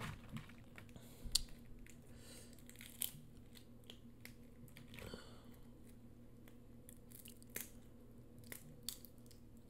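Boiled crawfish being peeled by hand: faint, scattered cracks and clicks of the shell, with soft chewing.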